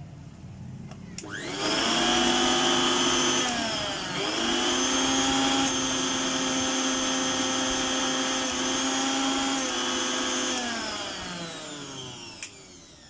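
Electric mixer grinder motor switched on, spinning up with a rising whine about a second in. Its pitch dips briefly at around four seconds, then it runs at a steady whine. Near the end it is switched off and winds down with a falling whine.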